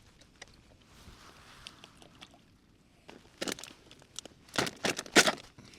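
Camp cooking gear and packaging being handled: a faint hiss, then from about halfway a quick series of sharp rustles and clatters.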